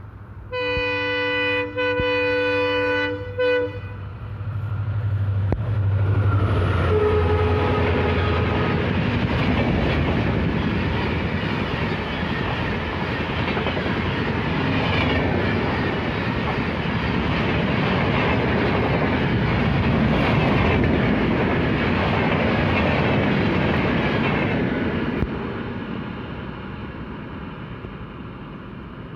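Indian Railways locomotive horn sounding two long blasts, followed a few seconds later by a fainter, shorter horn call. A train then passes at speed, its wheels clattering over the rails for about twenty seconds before fading away.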